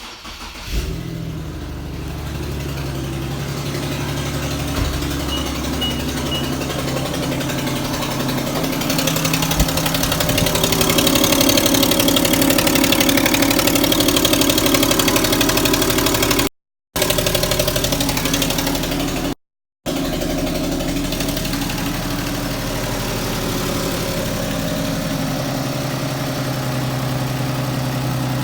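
A 2010 Infiniti G37S coupe's 3.7-litre V6 starts within the first second and runs at idle, with the knocking noise the owner reports on startup that goes away after about 20 seconds. The engine note changes and steadies about 25 seconds in.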